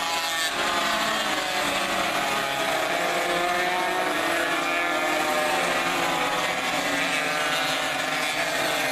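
A pack of classic racing motorcycles going through a corner, many engines running at once. Their overlapping pitches rise and fall as the riders roll off and accelerate out.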